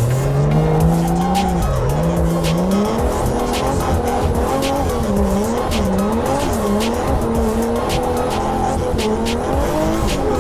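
Drift car engine revving up and down repeatedly as the throttle is worked, with tyres squealing and skidding.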